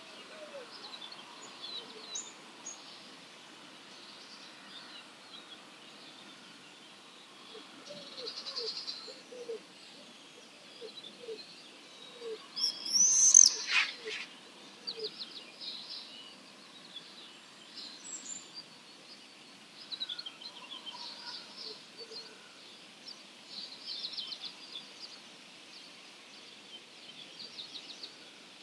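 Dawn chorus of wild songbirds: many overlapping high calls and song phrases throughout. A run of low, evenly spaced hooting notes comes in the middle, and one loud, high call comes about 13 seconds in.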